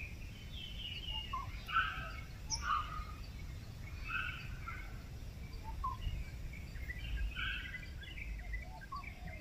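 Small birds chirping and calling in short, scattered notes over a steady low background rumble of outdoor noise.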